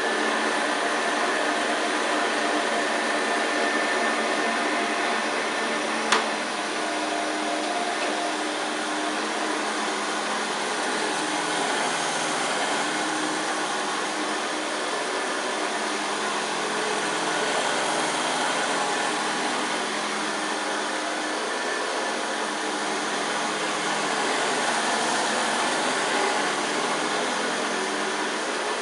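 1971 Hoover Senior 6525C upright vacuum cleaner running steadily: a constant motor hum with rushing air. There is a single sharp click about six seconds in.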